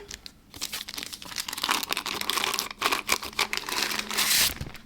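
Packaging crinkling and tearing as grinder parts are unwrapped: a dense crackle that starts about half a second in and stops shortly before the end.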